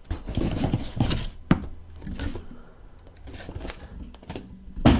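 Sealed trading-card boxes being handled on a table: several light knocks and soft rustling of cardboard and wrap.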